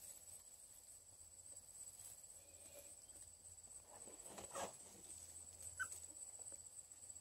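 Near silence, with a faint steady high-pitched whine. About four and a half and six seconds in come two faint brief sounds: a bluetick coonhound puppy stirring in straw.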